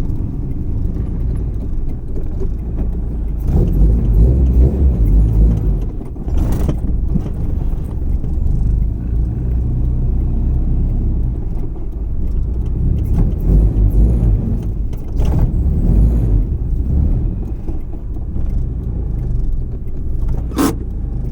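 An H2B-swapped EK Honda Civic being driven, heard from inside the cabin: a steady low engine and road rumble, with a few brief light rattles.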